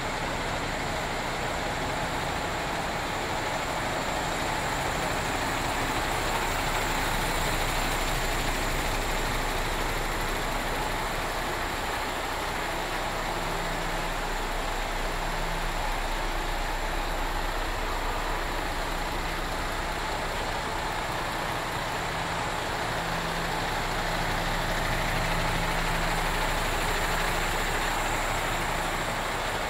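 MAN TGX 26.440 tractor unit's 440 bhp common-rail turbo diesel engine idling steadily.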